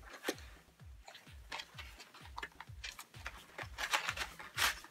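Cardboard and paper toy packaging being handled and pulled open by hand: a run of short rustles and scrapes.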